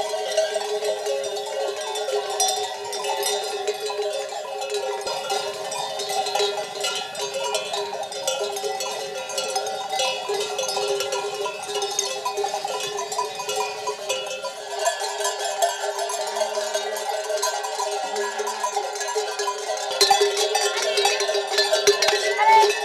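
Many sheep bells on a flock of ewes on the move, clanking and ringing together in a continuous jangle, with a few louder clangs near the end.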